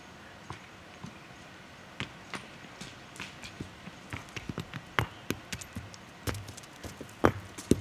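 Irregular sharp clicks and knocks, like stones or hooves striking rock on a steep rocky slope, scattered at first and coming more often from about two seconds in.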